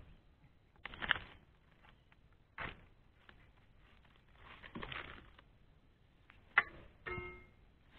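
Dodos, a pole-mounted oil palm harvesting chisel, chopping and prying at the frond bases and fruit-bunch stalk of a young replanted palm: a handful of separate knocks and scrapes a second or two apart, the sharpest and loudest near the end.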